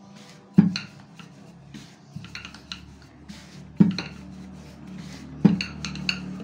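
Wooden rolling pin rolling out paratha dough on a granite counter, knocking sharply against the stone three times.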